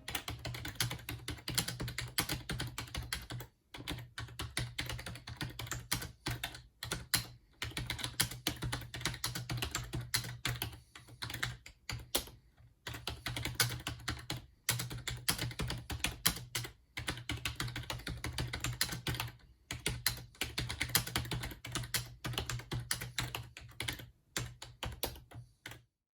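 Typing on an Acer Versato 6512-UV keyboard: a fast, irregular run of keystroke clicks with brief pauses every few seconds, stopping just before the end.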